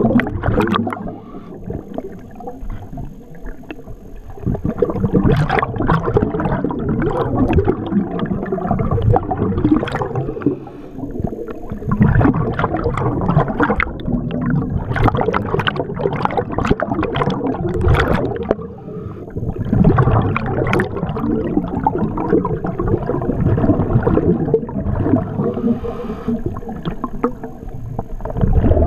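Scuba diver's regulator underwater: long stretches of bubbly, gurgling exhaust, broken by a few quieter gaps.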